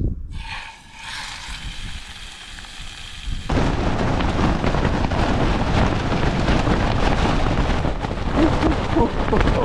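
Strong wind buffeting the microphone: a loud low rumble and hiss that rises suddenly about three and a half seconds in and stays loud.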